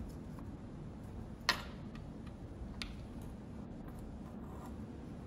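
Small metal clicks from handling a mesh watch-cleaning parts basket at the bench: one sharp click about a second and a half in, then a lighter one about a second later, over a low steady room hum.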